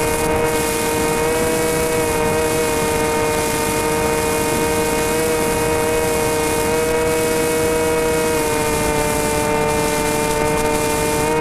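Motor and propeller of a radio-controlled flying wing, heard from the camera mounted on the aircraft: a steady droning whine whose pitch dips slightly now and then and starts to climb near the end as the throttle opens.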